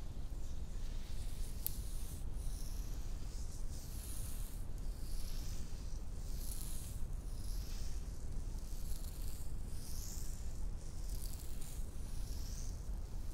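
Bare hands rubbing and sweeping close to the microphone: soft, irregular swishes of skin, about one a second, with a single sharp click about two seconds in.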